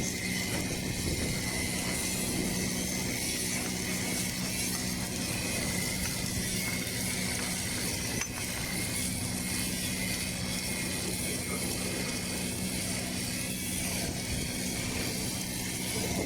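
Lincoln LT-7 submerged arc welding tractor running along a weld seam: a steady mechanical hum from the machine.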